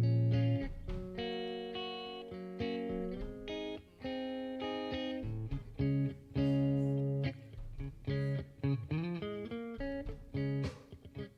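Instrumental music led by guitar: sustained plucked notes and chords over a bass line, with a note that bends up and down about nine seconds in.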